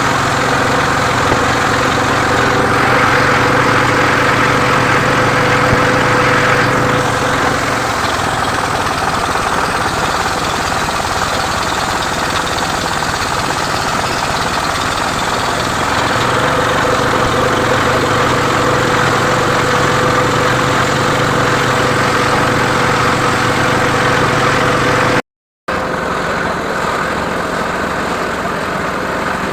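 Engine of a wood-sawing machine running steadily at a constant speed. The sound drops out abruptly for a moment near the end.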